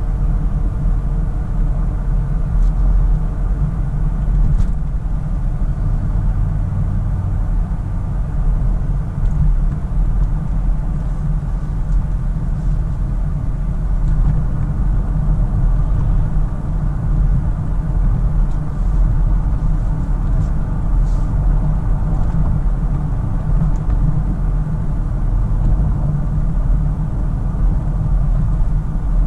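1996 Mercedes-Benz S420, with its 4.2-litre V8, driving at a steady cruise, heard from inside the cabin: a steady low engine and road rumble.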